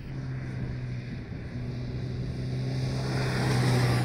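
Motorcycle riding past at steady engine revs, its engine note and road noise growing louder as it nears and peaking near the end.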